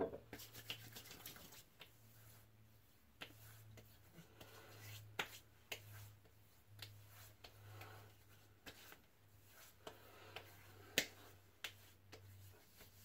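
Hands rubbing and patting post-shave balm into the face and neck: faint rubbing of skin on skin with scattered soft slaps and clicks, over a low steady hum. A louder knock comes right at the start.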